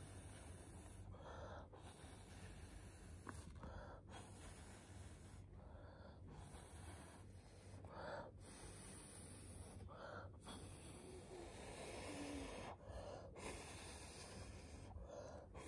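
Near silence with faint breaths close to the microphone, one roughly every two seconds.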